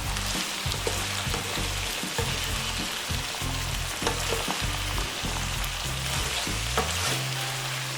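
Food sizzling and frying in a pan with a steady crackling hiss and occasional small ticks, over background music with a low bass line.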